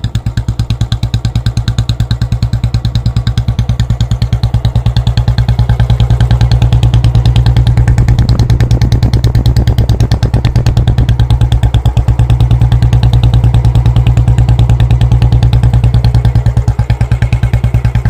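Royal Enfield Bullet 350 BS6's air-cooled single-cylinder engine idling with a steady, even thump from its exhaust.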